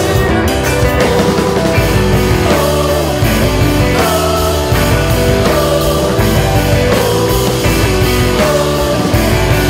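Math rock band playing an instrumental passage: interlocking guitars over bass and drums, with a melodic figure that repeats about once a second.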